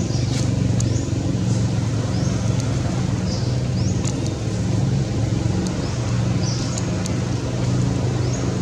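Steady low motor rumble, with short high-pitched chirps repeating roughly once a second over it.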